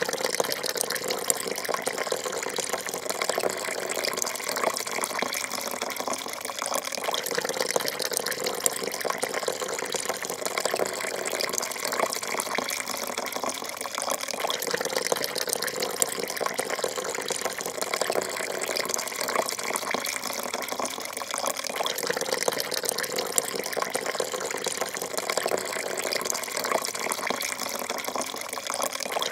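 Coffee pouring in a thin, steady stream into a porcelain cup, a continuous splashing trickle.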